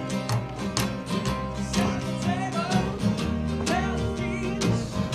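A band playing an upbeat country-style song: guitar over bass notes and a steady drum beat.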